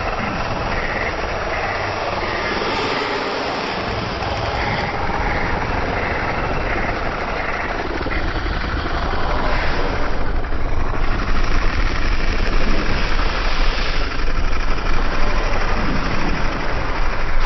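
A loud, dense, engine-like rumble that grows louder about halfway through.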